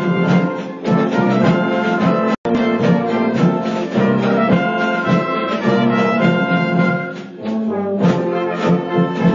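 School band playing live: brass (tubas, baritones, trumpets) carrying sustained chords over regular percussion beats. The sound cuts out completely for an instant about two and a half seconds in.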